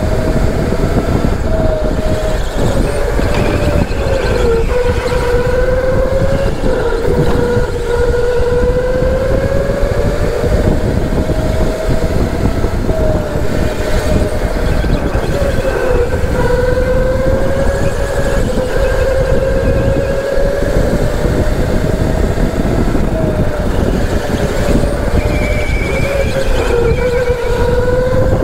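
Electric go-kart motor whining, its pitch rising and falling again and again as the kart speeds up and slows through the corners, over a steady low rumble of the kart on the track.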